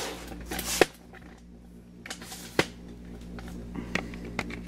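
A few light, isolated clicks and knocks over faint handling rustle, as tools and the camera are handled, with a faint steady hum underneath.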